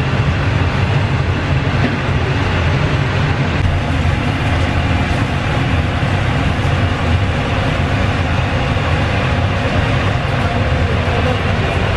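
Steady low rumble of a kitchen ventilation fan running over a charcoal fish grill, with a few faint clinks of metal skewers.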